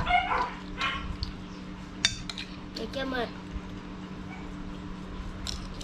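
Cutlery clinking against dishes during a meal: a few sharp separate clinks over a steady low hum, with brief bits of voice.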